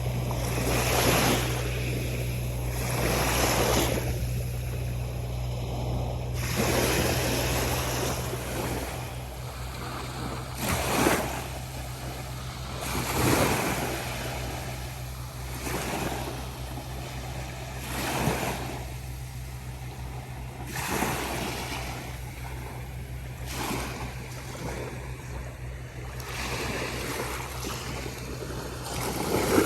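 Small, calm ocean waves breaking and washing up on a sandy beach, each surge swelling and fading every two to three seconds.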